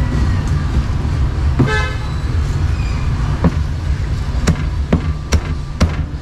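Cleaver chopping roast duck on a round chopping block: five sharp knocks in the second half. A short vehicle horn toot sounds about two seconds in, over a steady rumble of road traffic.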